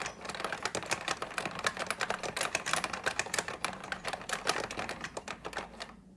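Fast typing on a 1980s Zbrojovka Consul 262.12 keyboard with Tesla Hall-effect linear switches and thick keycaps: a rapid, continuous run of keystroke clacks that stops just before the end.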